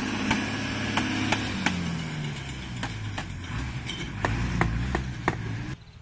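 Repeated sharp slaps and taps, about two a second at uneven spacing, as a hand beats the Case 851EX backhoe's dirty cylindrical air filter element to knock the dust out. An engine drones steadily underneath, and the sound cuts off suddenly near the end.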